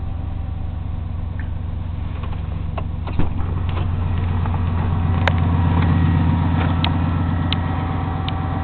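Chevrolet pickup truck's engine idling steadily on a cold start in the snow. About three seconds in there is a sharp clunk, after which the idle is louder, with a few light clicks.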